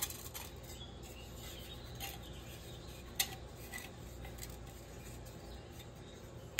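Nested stainless steel parts of a collapsible gasifier wood stove being twisted and pulled apart by hand: soft metal rubbing and scraping, with a few light clinks, the sharpest about three seconds in.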